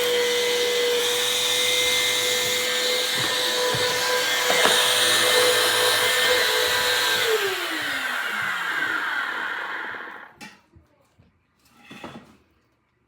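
Bissell CleanView upright vacuum cleaner running with a steady whine, then switched off about seven seconds in, its motor pitch falling as it spins down over a few seconds. A couple of faint knocks follow.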